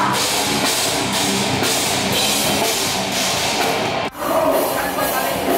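Loud rock music with drums, breaking off for an instant about four seconds in before carrying on.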